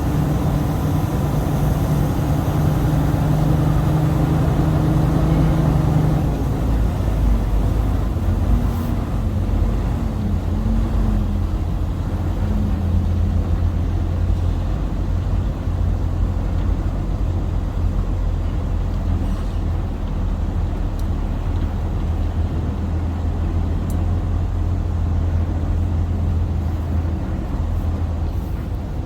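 Diesel engine of a 2017 Freightliner semi-truck running steadily as the truck is driven slowly. The engine note changes about six seconds in and settles lower.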